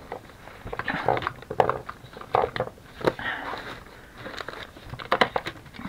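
Crinkling and rustling of paper and plastic craft supplies being handled, with scattered light taps and clicks.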